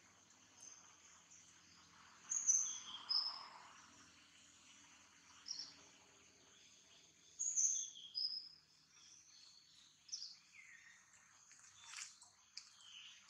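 A bird calling in short, high, falling notes, in two similar runs about five seconds apart, over a faint steady outdoor background. A sharp click sounds near the end.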